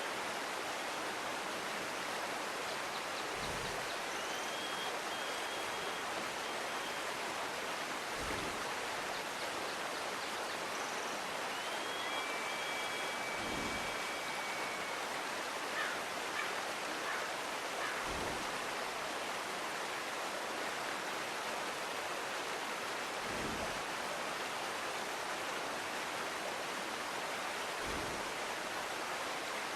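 Stream of flowing water: a steady, even rushing. A soft low thump comes about every five seconds, and a few faint short whistled chirps come now and then.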